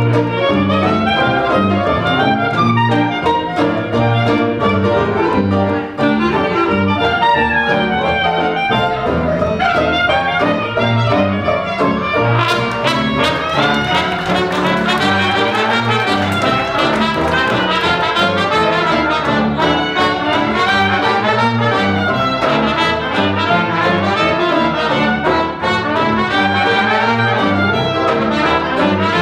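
A traditional New Orleans-style jazz band playing live, with the brass to the fore. The band is cornet, trombone, clarinet, banjo, piano and upright string bass.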